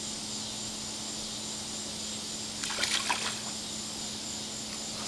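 Brief splash of water about three seconds in, over a steady hiss and a low hum.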